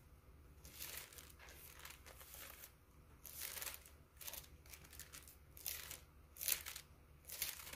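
Thin Bible pages being turned and leafed through: a run of short papery swishes, the loudest near the end.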